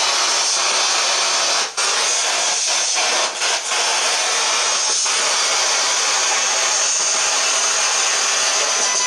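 Spirit box sweeping through radio static: a loud, steady hiss of white noise. It cuts out briefly about two seconds in and twice more around three and a half seconds.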